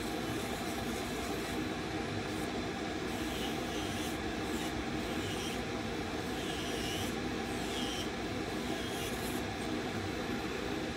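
Aerovex Sunflower II LED nail dust collector's suction fan running steadily, with the faint rasp of a nail file stroking a nail over it several times in the middle stretch.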